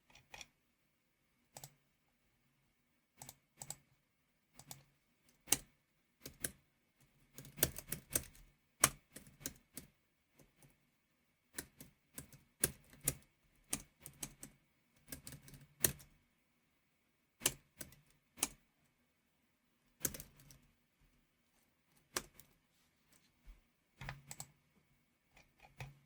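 Typing on a computer keyboard in irregular bursts: quick runs of keystrokes broken by pauses, with a few single keys struck harder and louder than the rest.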